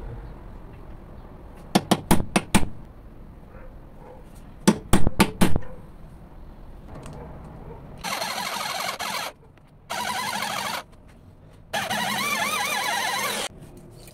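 A hammer striking a centre punch on a steel bar held in a vise, in two quick groups of about four blows, marking where the hole will be drilled. Then a power drill runs in three bursts of a second or two each, starting and stopping abruptly.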